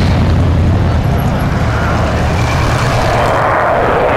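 Avro Vulcan XH558's four Rolls-Royce Olympus turbojets heard from the ground during a low flypast, a loud, steady jet roar. A deep rumble gives way to a higher rushing sound about three seconds in as the bomber climbs and banks away.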